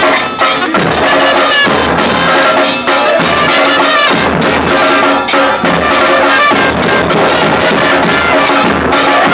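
An Argentine-style football supporters' group (hinchada) singing chants together over a steady, pounding beat of bass drums and other percussion. It is loud and continuous.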